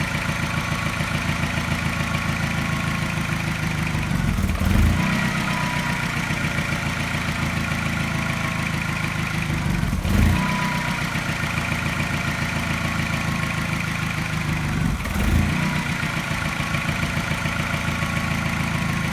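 Mini's N12 1.6-litre four-cylinder petrol engine idling. About every five seconds, three times, it gives a brief louder stumble with a mild tap, the sign of a regular slight misfire.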